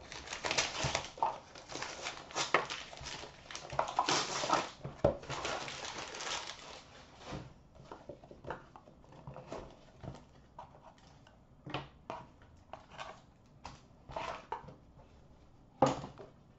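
Shiny wrapper of a trading-card pack crinkling and tearing as it is ripped open, a dense crackle lasting about seven seconds. After that come scattered light clicks and taps of a cardboard box and plastic card holders being handled.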